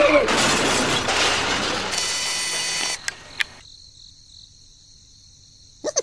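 A loud crashing, shattering noise lasting about three seconds and ending in two sharp clicks, then near quiet; a quick falling cartoon sound effect starts right at the end.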